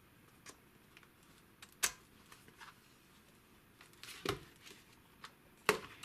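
Scattered plastic clicks and knocks of handling as a phone is unclipped and taken out of a VR headset, the sharpest click about two seconds in and two more near the end.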